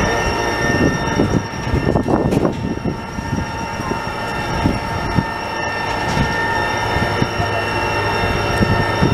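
Lifeboat davit winch running as it handles a cruise ship's tender on its cables: a steady high whine made of several tones over a low, uneven rumble.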